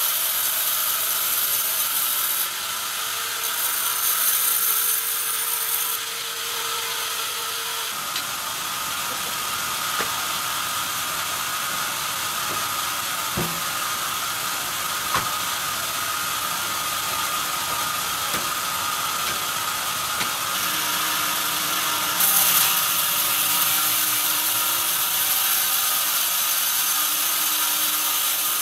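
Sawmill band saw running, its blade sawing lengthwise through a log on the carriage. A steady mechanical whir carries a high hiss that swells about three seconds in and again from about two-thirds of the way through. A couple of sharp knocks come near the middle.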